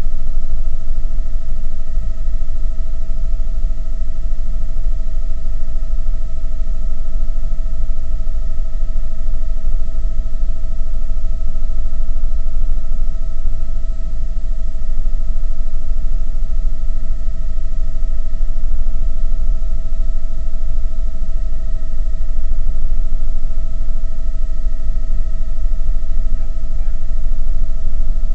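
Helicopter cabin noise in flight: a loud, steady low rotor and engine rumble with a steady high-pitched whine on top.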